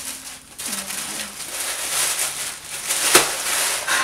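Wrapping paper and packaging rustling and crinkling as a gift is unwrapped by hand, with a sharp snap about three seconds in.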